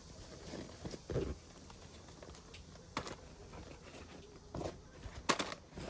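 Handling noises from a fabric insulated bag and the packaged food inside it being rummaged through: a few separate soft knocks and rustles, the loudest near the end.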